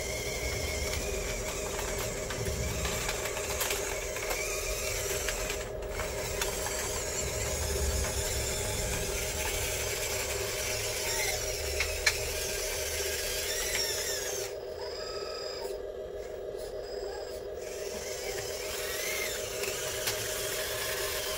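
Small electric motors and gearing of a radio-controlled Cat 963 track loader whirring as it drives and raises its bucket, over a steady hum. A single sharp click about twelve seconds in.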